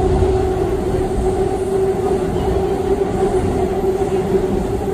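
Seoul Subway Line 2 electric train running at speed, heard from inside the carriage: a steady rumble with a constant whine.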